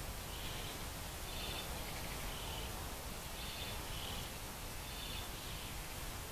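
Outdoor ambience: an animal's short, high chirps repeating about twice a second, alternating between two slightly different notes, over steady low background noise.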